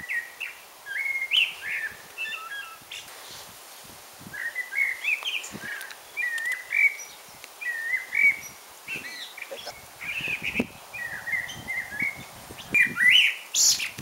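A songbird singing: short warbling phrases, one after another with brief pauses.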